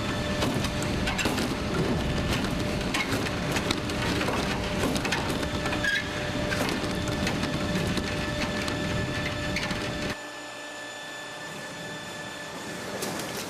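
Suspended T-bar ceiling grid, tiles and light fixture rattling and clattering with many small rapid knocks under simulated earthquake shaking. The shaking cuts off suddenly about ten seconds in, leaving a quieter steady hum.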